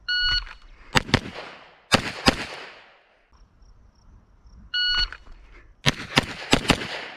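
Shot timer beep, then four semi-automatic pistol shots in two quick pairs, as in a drill of two shots on one target and a transition to the next; the same string is fired again, starting with a second beep near the middle.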